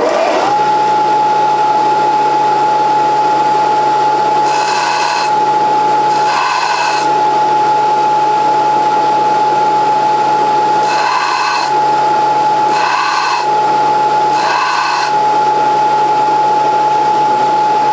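Belt sander starting up and running with a steady whine. A snapped steel drill bit is pressed against the moving abrasive belt five times, each a brief grinding rasp, to sharpen its cutting edge.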